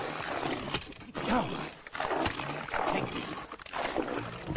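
Heavy splashing of water at a boat's bow, with wordless yells or cries rising and falling in pitch.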